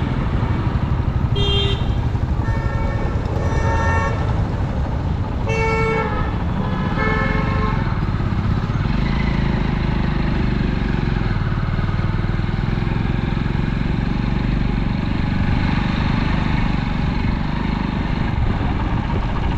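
Busy road traffic running steadily, with several short vehicle horn honks in the first third.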